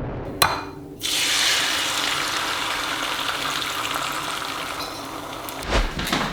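A sharp click, then water running steadily for about four and a half seconds; a dull thump near the end.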